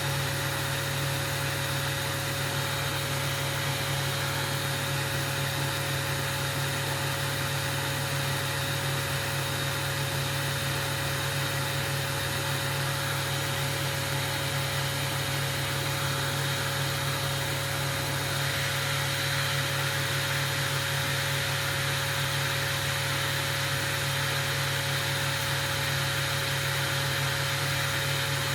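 A steady mechanical hum with a constant higher tone and an even hiss over it, running without a break and getting a little brighter about two-thirds of the way through.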